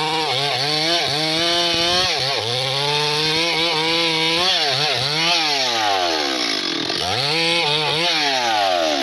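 Stihl MS 381 two-stroke chainsaw at full throttle cutting through a thick trembesi (rain tree) log. The engine pitch sags and recovers again and again as the chain bites into the wood, with long downward slides under heavy load in the second half.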